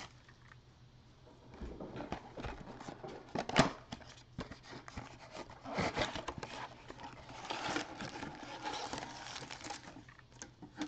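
A cardboard trading-card box being opened by hand: the flap torn open and folded back, and the wrapped packs rustling and scraping as they are pulled out. A sharp knock comes about three and a half seconds in, and the rustling is densest near the end.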